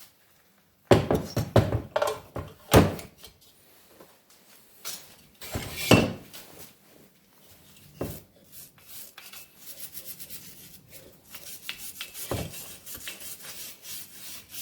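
Several loud knocks and clatters of metal parts and tools being handled, then a metal wire brush scrubbing quickly over a VW Type 1 cylinder head in a fast run of short scraping strokes.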